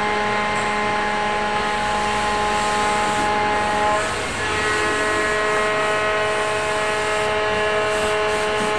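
Machine-shop machinery running: a steady whine of several tones over a hiss. The whine breaks off briefly about four seconds in and comes back at a slightly different pitch.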